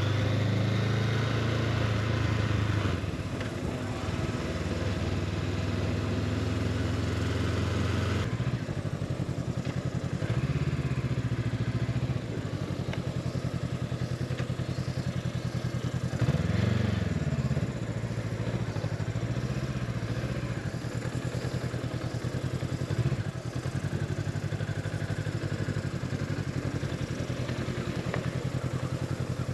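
Honda CB500X parallel-twin engine running as the bike is ridden. It is a steady low hum, with the revs rising and falling a few times; the biggest swell comes about 17 seconds in.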